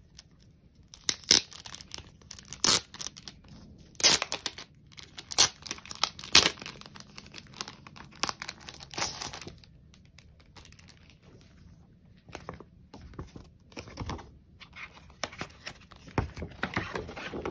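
Paper poster rustling as it is unfolded and handled, with sharp irregular bursts of rustle through the first half, a quieter stretch, then more rustling near the end.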